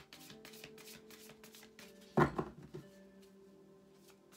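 A deck of tarot cards being shuffled by hand, a quick run of soft card strokes with one louder burst about two seconds in. Soft background music with steady held tones plays underneath.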